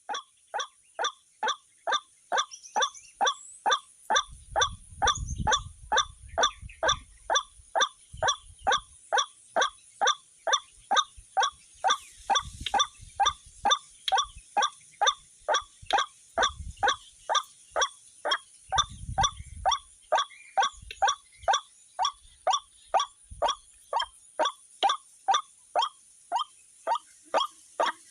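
White-breasted waterhen (ruak-ruak) calling: a short, downward-sliding note repeated very evenly about twice a second. Low rumbles come and go a few times.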